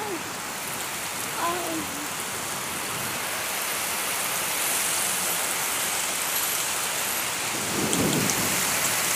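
Heavy rain pouring down steadily in a thunderstorm, growing slightly louder partway through, with a short low rumble of thunder near the end.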